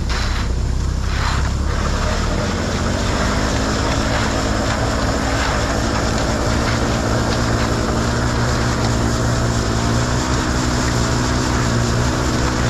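An engine running steadily, its pitch stepping up and holding there from about two seconds in.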